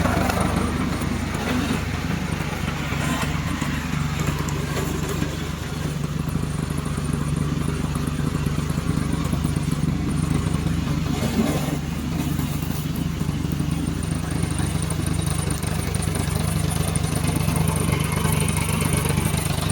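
Engine of a remote-control lawn mower running steadily at an even speed.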